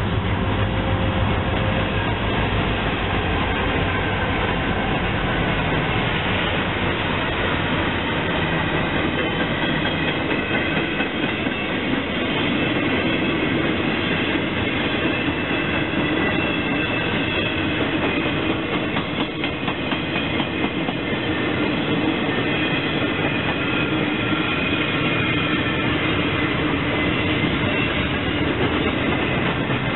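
Ringling Bros. and Barnum & Bailey circus train passing close by. Diesel locomotives go by at first, then the long string of cars rolls past with a steady clatter of wheels over the rail joints. From about ten seconds in, a thin high-pitched wheel squeal runs over the rolling noise.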